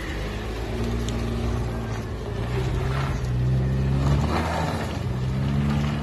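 An SUV's engine running, its revs rising and falling several times as it is driven on an off-road slope.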